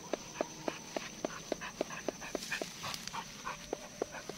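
Pitbull panting quickly and evenly, about three to four breaths a second.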